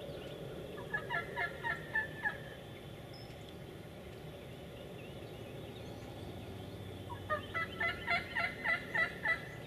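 Turkey call worked by a hunter to sound like a hen yelping, calling to a gobbler: two runs of quick yelps, about six notes about a second in and about eight near the end.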